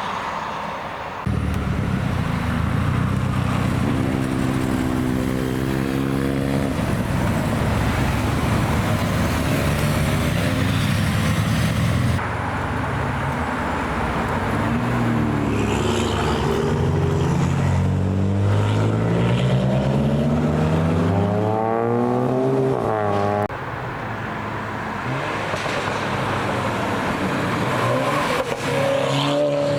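Sports and performance car engines accelerating hard, in several separate passes. The engine note climbs in pitch repeatedly as the cars rev up through the gears.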